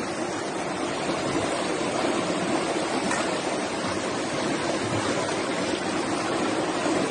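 Muddy floodwater rushing in a fast torrent down a paved street, a steady rushing noise of churning water.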